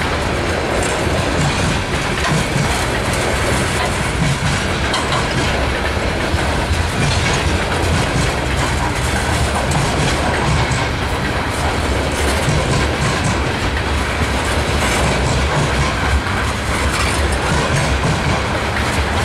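Freight cars of a BNSF mixed freight train, covered hoppers and boxcars, rolling past close by: a loud, steady rumble of steel wheels on rail, with wheels clicking over rail joints.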